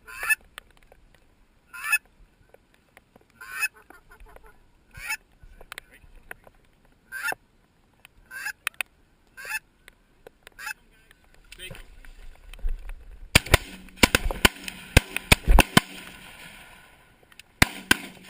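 Goose honks, short single calls about every second and a half. From about thirteen seconds in comes a quick run of sharp clicks and knocks.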